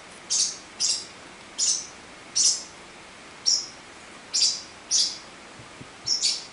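Young parrotlets chirping: about nine short, high-pitched chirps, spaced irregularly.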